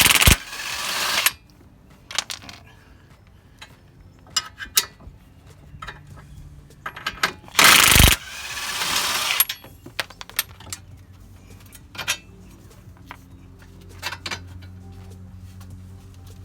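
A 1/2-inch impact wrench hammering in two loud bursts, one at the start and one about eight seconds in, loosening a 24 mm suspension bolt. Between the bursts come scattered metallic clicks and knocks from tools and parts.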